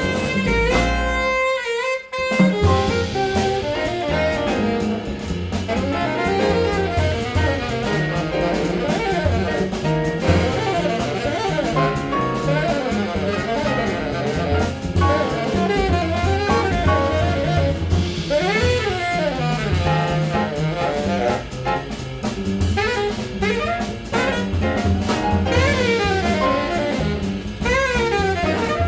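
Jazz quintet playing live: saxophone lines over piano, double bass and drum kit. About a second in the rhythm section drops out briefly before the band comes back in.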